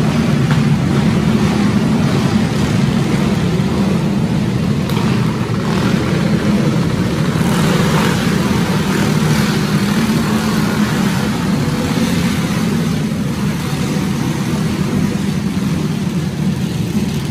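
Several dirt racing karts' small engines running steadily at low speed inside a covered arena, an even, continuous engine sound without revving.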